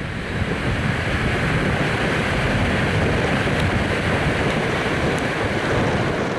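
Steady rushing noise of wind buffeting the microphone, mixed with surf, unbroken and without pauses.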